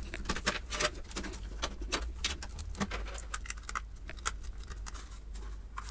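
Irregular clicks and rattles of PC power-supply cables and their plastic connectors being unplugged and handled, with a steady low hum underneath.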